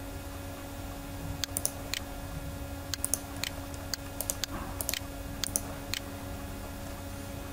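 About a dozen light, irregular clicks at a computer, some in quick pairs, over a steady low electrical hum.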